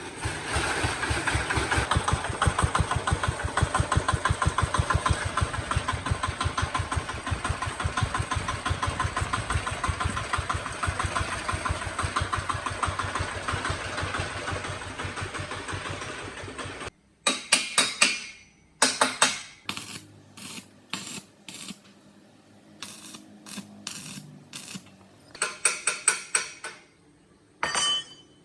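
Small engine running with a fast, even beat of firing pulses, about ten a second, which stops abruptly about seventeen seconds in. It is followed by a series of short, sharp metallic clanks and taps.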